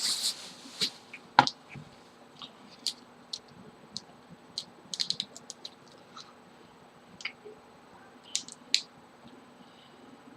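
Close-up eating sounds of a person chewing sweet and sour chicken: scattered wet clicks and smacks, with one sharper knock about a second and a half in.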